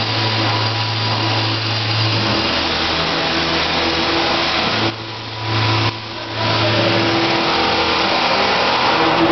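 Arc welding on a steel gooseneck trailer frame: the arc's steady crackling hiss over a low machine hum. The arc breaks off twice briefly near the middle.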